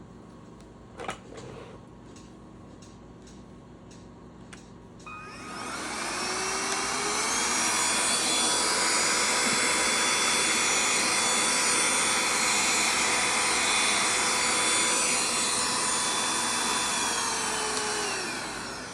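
Handheld cordless vacuum cleaner switched on about five seconds in, its motor whining up to speed, running steadily, then winding down near the end.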